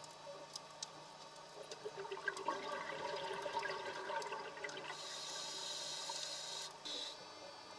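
Scuba diver breathing through a regulator underwater. From about two seconds in there is a gurgling rush of exhaled bubbles, then the hiss of an inhalation that cuts off suddenly near the end.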